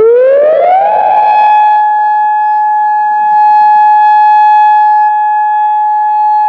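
Electronic outdoor warning siren sounding through its horn speakers, loud: the tone rises over about the first second, then holds one steady pitch.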